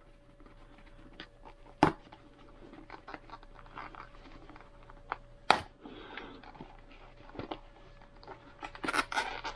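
Motorcycle helmet cheek pad being pulled out by hand: foam and fabric rustling and scraping, with two sharp snaps, about two seconds and five and a half seconds in, as the pad's press-stud fasteners let go.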